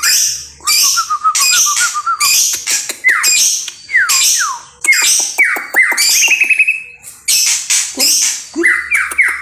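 Oriental magpie-robin singing a loud, varied song: harsh scratchy notes alternating with clear falling whistles, with a wavering trill near the start and a fast trill about six seconds in.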